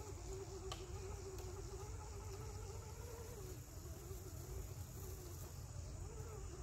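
A flying insect buzzing close to the microphone, its pitch wavering up and down as it moves, over a steady high-pitched insect drone.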